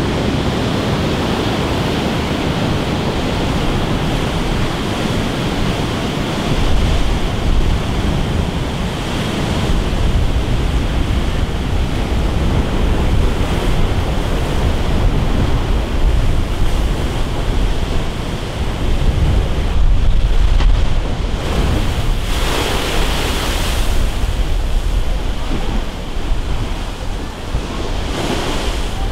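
Heavy storm surf, driven by an offshore hurricane, crashing and washing against a concrete sea wall, with wind buffeting the microphone. About three quarters of the way through, a louder, hissing surge of breaking water stands out.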